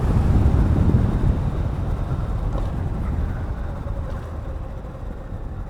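Wind rushing over the microphone and a low rumble while riding a modded electric Razor, fading gradually, with a faint steady hum coming through in the second half.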